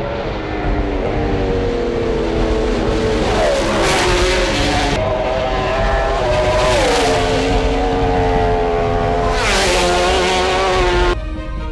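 Isle of Man TT racing motorcycle engines at high revs, the pitch climbing and dropping several times as the bikes rev through gears and pass. Music takes over near the end.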